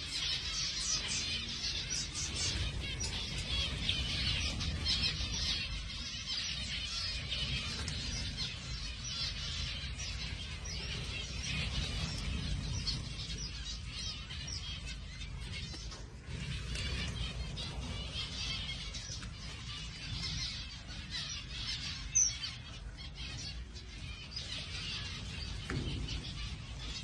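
A flock of zebra finches in an aviary, calling and chirping together: a dense, unbroken chatter of short high calls, with one sharp tick about two-thirds of the way through.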